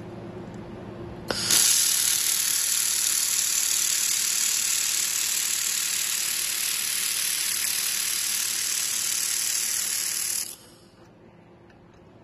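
Handheld laser welding gun welding a steel joint: about a second in it fires with a click, then gives a loud steady hiss for about nine seconds before cutting off suddenly.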